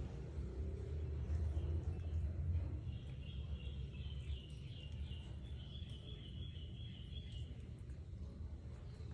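Low background rumble, with a bird chirping a quick series of short high chirps for a few seconds in the middle.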